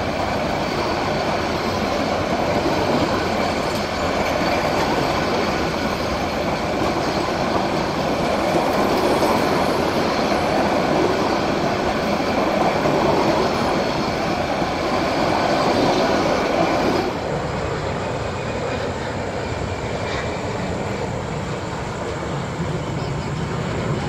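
Metre-gauge PT INKA-built passenger coaches of an express train passing at speed alongside a platform: a steady rush of wheels on rail and running gear. About seventeen seconds in the noise drops suddenly and runs on lower.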